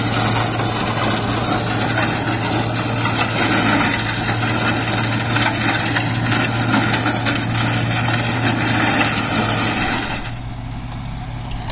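Deutz-Fahr Agrolux 80 tractor's four-cylinder engine working steadily under PTO load while the Maschio Terminator 180 shredder's 20 blades chop farm waste, making a dense, continuous clatter and rush over a steady engine drone. About ten seconds in the sound drops noticeably quieter.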